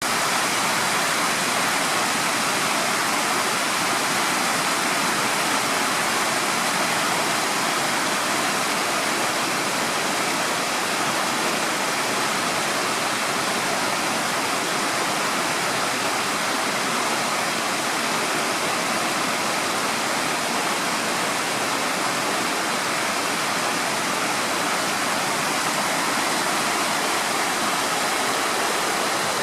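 Fast-flowing river water rushing over a weir: a steady, loud, unbroken roar of falling and churning water.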